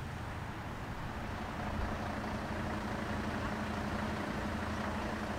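Heavy vehicle engine running steadily at a constant low pitch, growing slightly louder about a second and a half in.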